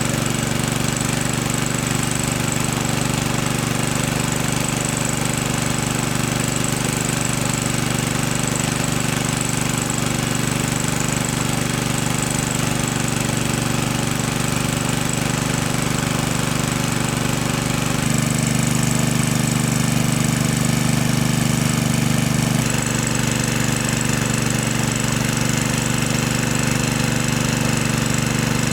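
A small engine running steadily with a rapid chugging knock; its tone changes abruptly twice, near two thirds of the way through and again a few seconds later.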